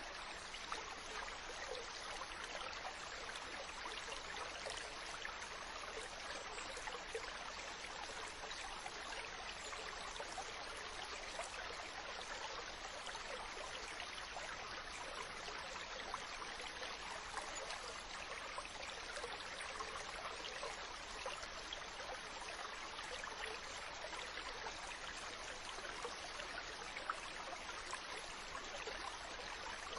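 Small stream flowing: a steady babble of water with many small trickles and splashes.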